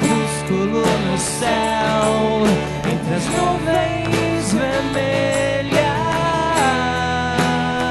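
A small band playing live: acoustic guitars and an electric guitar over a steady drum beat, in a passage with no words sung.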